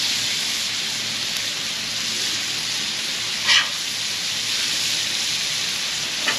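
Redfish fillets blackening in a very hot pan with butter: a steady sizzle. Two brief sharp sounds cut through it, about three and a half seconds in and again near the end.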